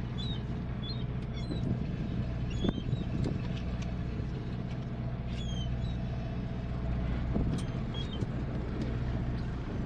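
A fishing boat's engine running steadily, a low even hum, with scattered short, high chirps that drop in pitch and a few light clicks over it.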